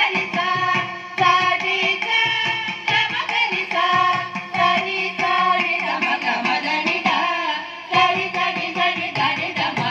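Group of singers singing a Tamil devotional song to Shiva in Carnatic style, with a mridangam drum keeping the rhythm.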